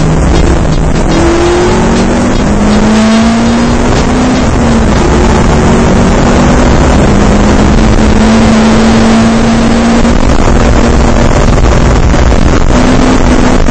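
Race car engine under hard driving, heard from inside the cabin over loud wind and road noise, its note climbing and stepping as the revs change.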